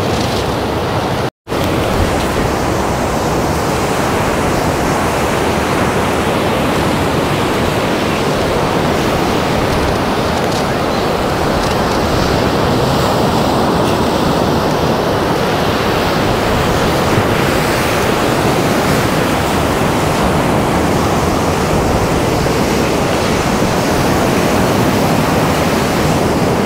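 Steady rush of ocean surf breaking on the beach, mixed with wind blowing across the microphone. The sound cuts out for an instant about a second and a half in.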